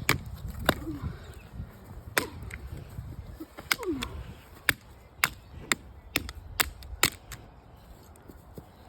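Sharp plastic clicks and knocks from a broken alarm clock being taken apart, about a dozen at irregular intervals, stopping about seven seconds in.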